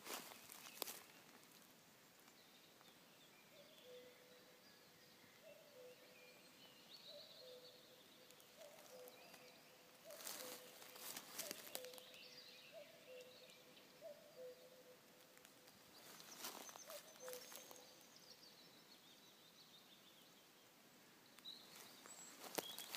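Common cuckoo calling its two-note cuckoo, high note then lower note, about ten times in an even series, faint, over thin songs of smaller birds. A few brief rustles, like steps in leaf litter, come in around the middle and near the end.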